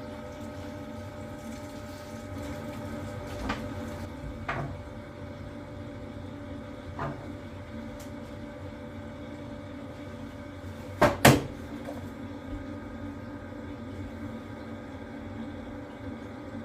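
A steady hum from the commercial boiler plant, broken by a few sharp clicks and two loud knocks in quick succession about eleven seconds in.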